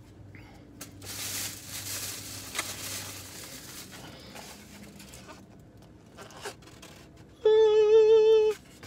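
Paper takeout bag rustling and crinkling as food is pulled out of it, with a few light clicks of packaging being handled. Near the end, a loud held pitched note with a slight wobble, about a second long.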